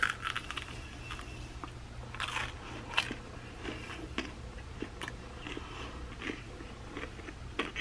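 A person bites into oven-baked garlic bread with a crisp crust and chews it close to the microphone: irregular small crunches and mouth clicks.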